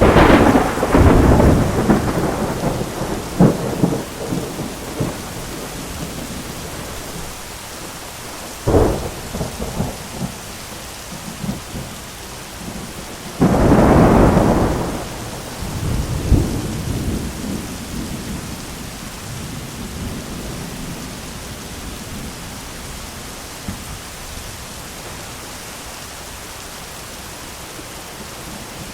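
Steady rain with thunder: a loud crack at the start that rumbles on for several seconds, a short sharp clap about nine seconds in, and a loud peal about fourteen seconds in that rumbles for several seconds before the rain goes on alone.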